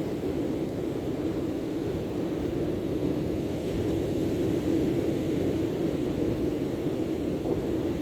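Steady, unbroken rushing noise of wind and sea surf at a beach.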